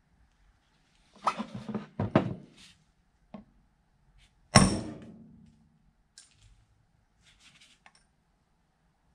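Hammer knocking on the cast-iron quick-change gear box of a South Bend lathe: a few separate metal knocks, the loudest about four and a half seconds in, ringing briefly after it.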